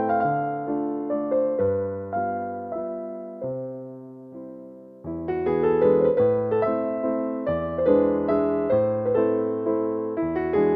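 Background piano music: a melody of struck notes over low chords. It thins to a few softer notes a little past the middle, then comes back fuller and louder about five seconds in.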